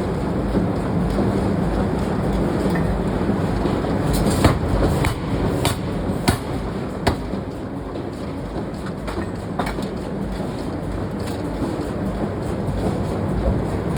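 Forge-shop machinery running with a steady, loud din, and a scattering of sharp metal knocks from about four to ten seconds in.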